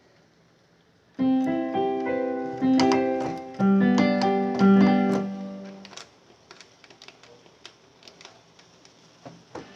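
Korg X3 synthesizer playing a piano-like General MIDI patch: held chords that change about four times, then fade away about six seconds in. Faint scattered clicks follow for the rest of the time.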